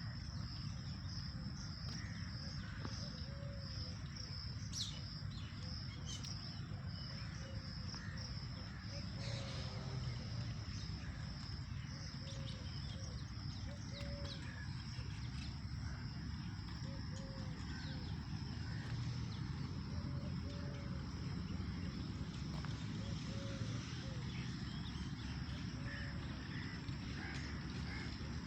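Outdoor park ambience: a steady high-pitched insect trill over a continuous low rumble, with short low calls repeating every second or two.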